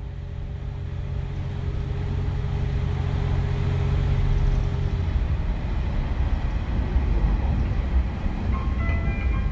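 JR Shikoku KiHa 47 diesel railcar heard from inside while running: rumble from the wheels and track over a steady engine drone. The drone drops away about halfway through, leaving the running rumble. Near the end the short melody of the JR Shikoku chime begins.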